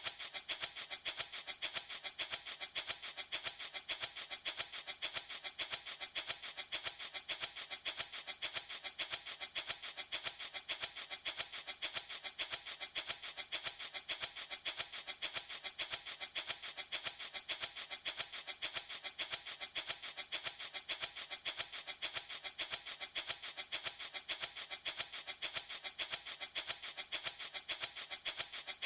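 Handmade baby rattle shaken over and over in a steady, even rhythm, each shake a bright, hissy rattle of beads or seeds.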